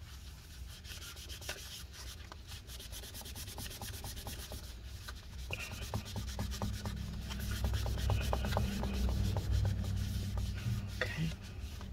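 A paper towel wet with rubbing alcohol scrubbing battery adhesive residue off the inside of a MacBook Pro's case. It is a continuous scratchy rubbing that gets louder from about halfway through.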